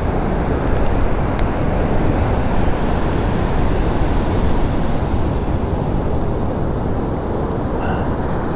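Steady, uneven low rumble of wind buffeting the microphone over the roar of the surf, with one small click about a second and a half in.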